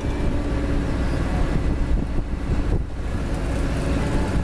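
Heavy diesel machinery running steadily with a low rumble and a constant hum, while the winch pulls a stuck machine free.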